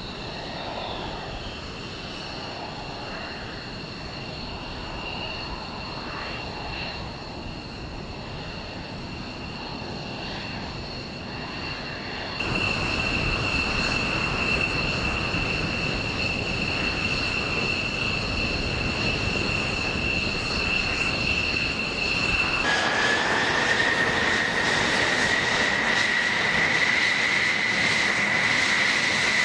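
Jet engines running with a steady high whine over a roar, in three takes that change abruptly. KC-135 Stratotanker turbofans come first. A louder take of F-16 jet engines idling on the flight line follows, a little before halfway. In the last quarter an F-35's engine whines at a lower pitch that slowly rises as it taxies.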